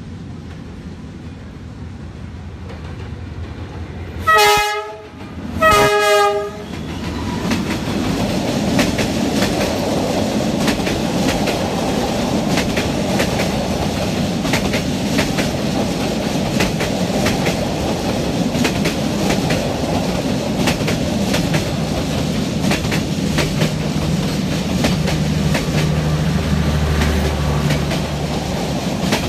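Vietnamese diesel-hauled passenger train sounding two short horn blasts about a second apart as it approaches, then passing close by: a steady rumble with the rapid clickety-clack of wheels over rail joints. A deeper hum joins near the end.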